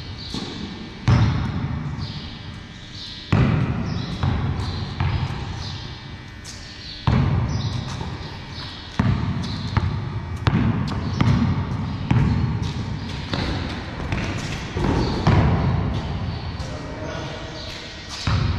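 Basketball dribbled on a concrete floor in a large, echoing hall. The bounces come irregularly, about one a second, each ringing on in the room.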